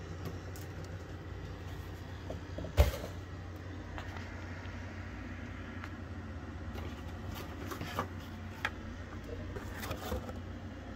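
Handling noise over a steady low hum: scattered light clicks and ticks, with one sharp knock about three seconds in.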